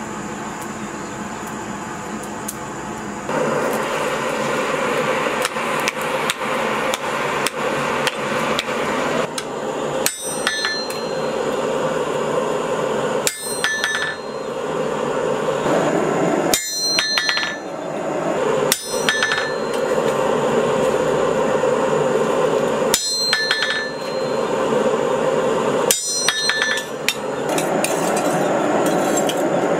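Hand hammer striking spring steel on an anvil in a string of blows. About six of them ring out clearly, the first about ten seconds in and the last near the end, over a steady rushing noise.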